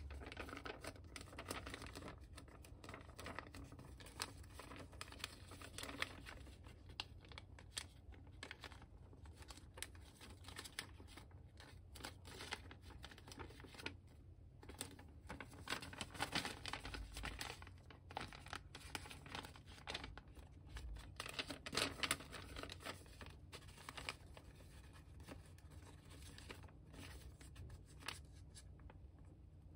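Sheet of origami paper rustling and crinkling in the hands as it is folded and creased, in irregular rustles with sharper crackles, a little louder past the middle.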